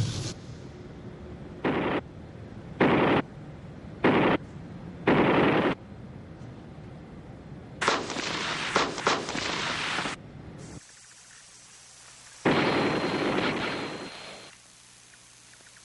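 Gunfire: five short bursts a bit over a second apart, then a longer stretch of rapid fire, then one last burst that fades out.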